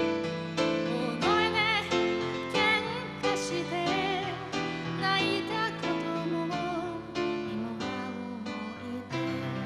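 A woman singing with vibrato as she accompanies herself on a Roland XP-80 keyboard with a piano sound, chords struck again and again under the voice.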